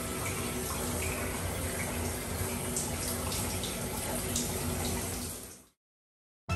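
Tap water running steadily into a bathtub, fading out near the end.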